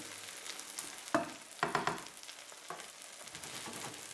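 Omelette frying in butter in a nonstick pan, with a steady sizzle. A spatula scrapes against the pan a few times, about a second in and again near the middle.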